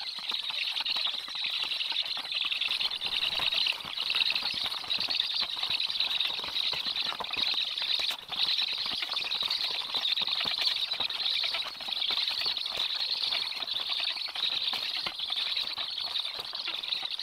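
Several black stork chicks begging on the nest at a feeding: a continuous wheezy, hissing chorus, with the flutter of their flapping wings as the adult arrives with fish.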